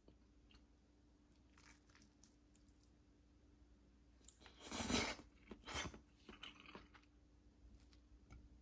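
A person eating: soft clicks, then two louder crunching sounds a little past halfway, followed by a few smaller ones.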